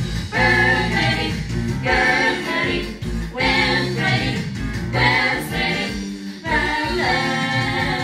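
Jazz vocal chorus singing in harmony, in short phrases that restart about every second and a half.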